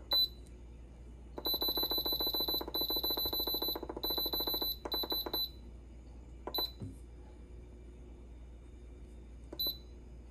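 Instant Pot IP-DUO electric pressure cooker's control panel beeping as its buttons are pressed. There is a single beep, then long runs of rapid beeps as a button is held to scroll the cooking time, then a couple of single beeps. The cooker is being set to cook at high pressure for 45 minutes.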